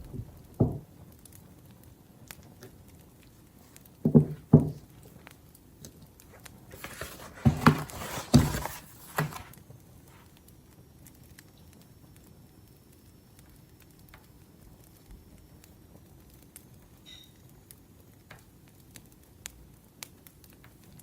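Wood fire crackling with scattered small pops, broken by a few louder knocks near the start and about four seconds in, and a couple of seconds of louder rustling clatter in the middle.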